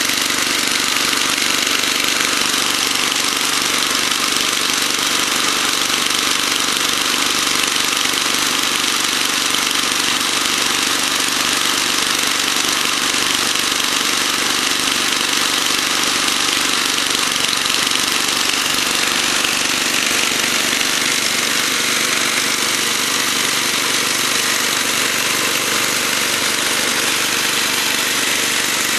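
Toro 421 snowblower's single-cylinder engine running steadily after a cold start, with a dense mechanical rattle over the engine note.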